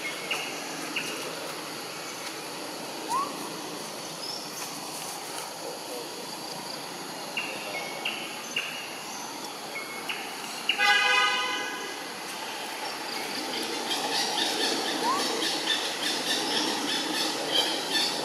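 Steady outdoor background noise with groups of short high chirps. About two-thirds of the way through, a vehicle horn gives one steady toot of about a second, the loudest sound.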